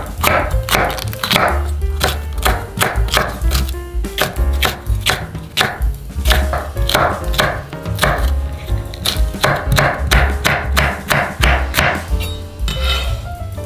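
Santoku knife slicing bell peppers into thin strips on a wooden cutting board: a steady run of crisp knife strokes knocking on the board, about two to three a second.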